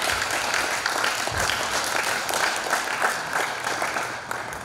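Audience applause, many people clapping together, thinning out near the end.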